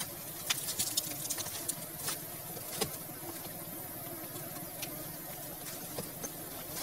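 Scraping and clicking of a hand tool working inside a rock-and-soil hollow of a wild honeybee nest, with dry twigs and grass rustling. Sharp clicks come close together in the first three seconds, then only now and then over a fainter rustle.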